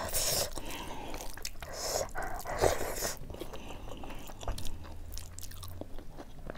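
A person chewing a mouthful of rice and buffalo meat curry, with irregular wet chewing and smacking sounds. Fingers mix rice on a steel plate alongside.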